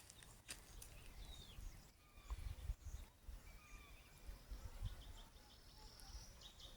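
Faint outdoor ambience: scattered, thin bird calls over a low, uneven rumble. Near the end a run of quick, repeated high chirps begins.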